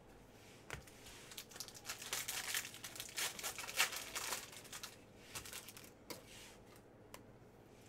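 Foil trading-card pack wrapper being torn open and crinkled by hand, densest about two to four seconds in, followed by a few soft clicks.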